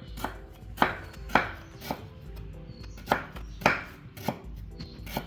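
A series of sharp knocks, about eight of them at uneven intervals.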